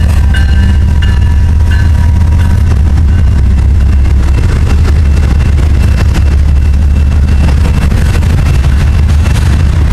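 Freight train rolling past at close range: the trailing GE Dash 9 diesel locomotive goes by, then loaded tank cars, with a loud steady rumble of steel wheels on rail. The tail of the locomotive horn fades out within the first couple of seconds.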